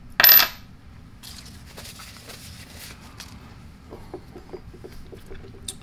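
A small steel part of an air impact wrench's hammer mechanism set down on a wooden workbench with one sharp metallic clink and a brief high ring just after the start. Faint clicks and rustles of hands handling the steel parts follow.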